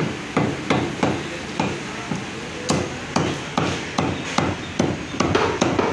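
A heavy meat cleaver chopping mutton on a wooden tree-trunk block, with repeated sharp strikes at roughly two to three a second, unevenly spaced.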